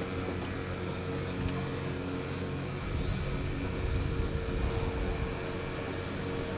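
Electric go-kart driving on an indoor track, heard from a camera mounted on the kart: a steady motor hum over road and wind noise. A louder low rumble comes in about three to five seconds in.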